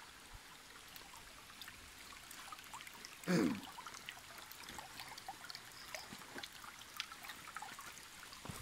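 Shallow creek water trickling over stones: a steady faint rush with scattered small ticks and splashes. About three seconds in there is one brief, louder low sound falling in pitch.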